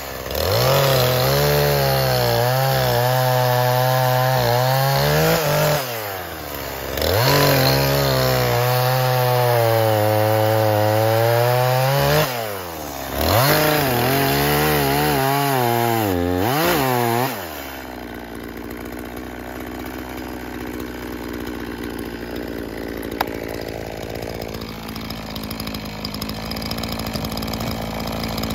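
Echo CS-4510 two-stroke chainsaw cutting through a log at high revs, its pitch sagging and rising as the chain bites, in three long cuts with short drops in revs between them. About eighteen seconds in, the engine note stops, leaving a quieter steady low hum.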